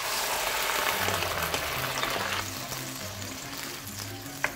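Hot water poured into a wok of frying bacon, fish cake and garlic, setting off a loud sizzling hiss that dies down after about two and a half seconds into a softer sizzle. Soft background music plays underneath.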